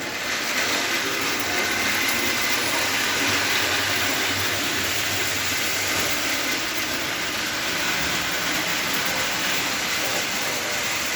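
Custom prewar-style O-gauge toy locomotive running under power, its modified Lionel 249 electric motor and gears whirring steadily with a faint high whine, the wheels rolling on the track.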